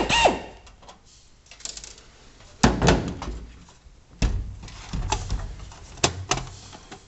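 Knocks and clicks of a screwdriver working on a set-top box's steel case while its Phillips screws are taken out: a short squeak at the start, two loud knocks about two and a half and four seconds in, then lighter clicks.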